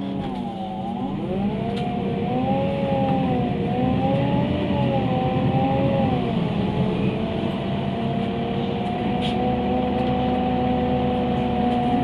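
Engine of a MAN Lion's City A21 NL273 CNG city bus heard from inside the cabin: a whining tone of several pitches over a low rumble. The whine dips and rises again about a second in, wavers, then holds steady for the second half.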